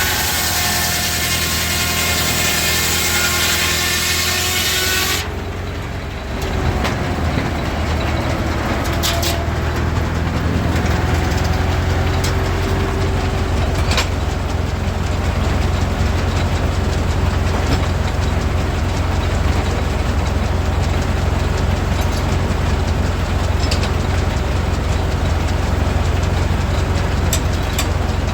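Sawmill running, powered by a Ford Model A four-cylinder engine held at a steady governed speed. For the first five seconds there is a many-toned whine; after that the sound changes abruptly to a steady low engine rumble with a few sharp knocks.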